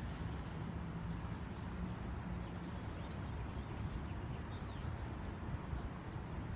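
Outdoor ambience: a steady low rumble with a few faint, high bird chirps.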